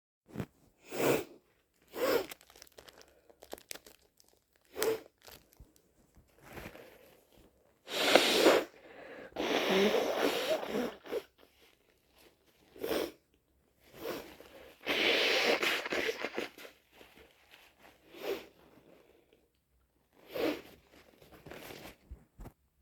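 A person with a head cold sniffling repeatedly through a congested nose, with loud, wet sneezes and two long nose blows into a tissue.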